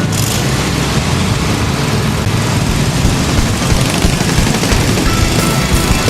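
Riding lawn mower engine running, a loud, rapid, uneven popping from the exhaust.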